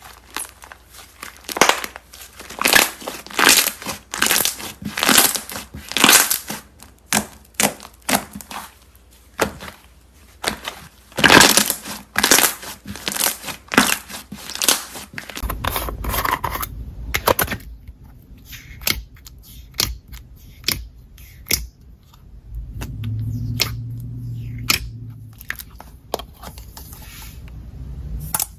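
Slime being squished and stretched by hand, making dense crackling and popping clicks. About fifteen seconds in the sound changes to sparser, softer clicks over a low hum.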